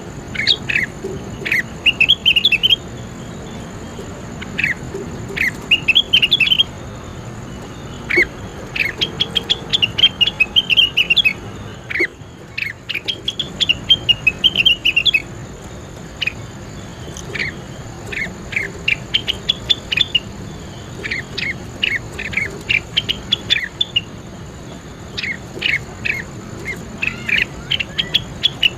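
A songbird singing in clusters of short, sharp chirps and quick trills, each phrase a second or two long with short pauses between, over a steady background hiss and a faint, steady high tone.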